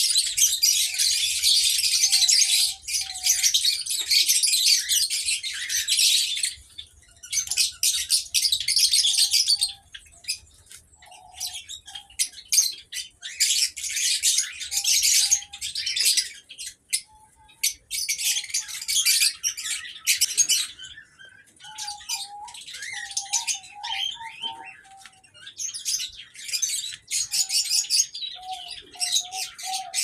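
A mixed aviary flock of small cage birds (lovebirds, Java sparrows, cockatiels and others) chirping and chattering at once, in dense, high-pitched spells that die down and pick up again several times. Short, lower whistled notes come through here and there.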